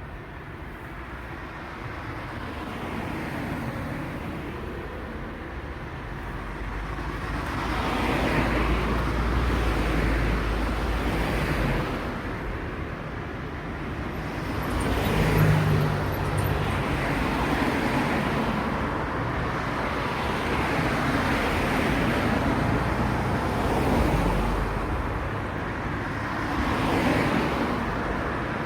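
Road traffic: cars passing one after another in a steady stream, lighter at first and busier from about a quarter of the way in, with a deeper engine note briefly about halfway through.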